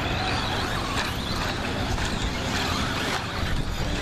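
Radio-controlled 2WD short-course trucks racing on a dirt track, their motors whining up and down as they pass and accelerate.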